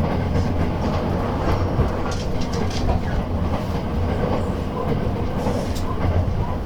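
Running noise heard inside a JR West 287 series electric train car: a steady low rumble of the wheels on the track, with a few scattered light clicks.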